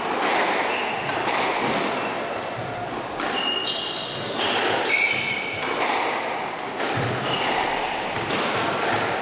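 Squash ball thudding against the walls and wooden floor of a squash court, struck again and again, with a few short high squeaks of shoes on the floor about halfway through and the hits echoing in the court.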